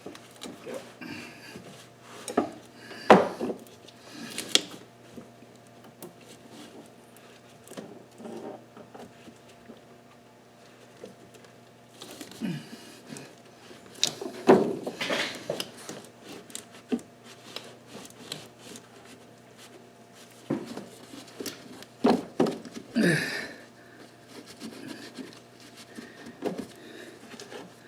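Rubbing and wiping with rags among engine parts, with scattered knocks and clatters as hands and tools bump against them; the loudest knocks come about three, fifteen and twenty-three seconds in.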